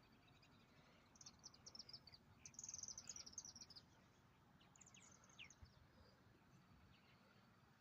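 Faint birdsong: a songbird singing quick runs of short high notes, three times, loudest around the middle, over a low background hiss.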